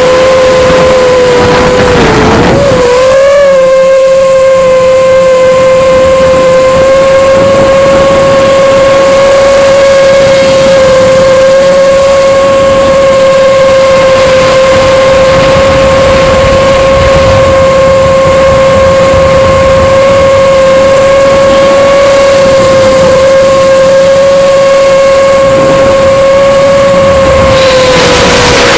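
A 5-inch FPV freestyle quadcopter's brushless motors and propellers whine steadily at one pitch, heard loud through the drone's onboard camera. The pitch dips and wobbles about two to three seconds in, as the throttle changes.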